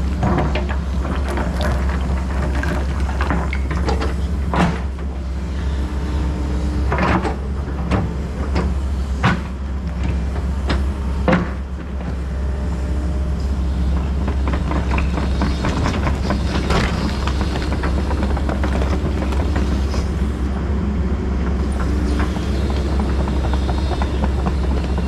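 Excavator's diesel engine running steadily, with a series of sharp knocks and clanks from the machine at work.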